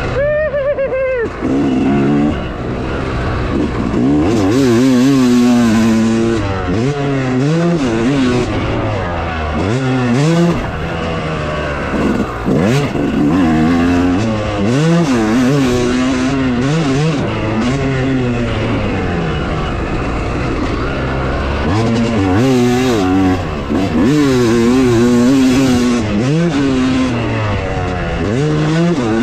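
Dirt bike engine being ridden hard, revving up and dropping back again and again as the rider works the throttle and gears.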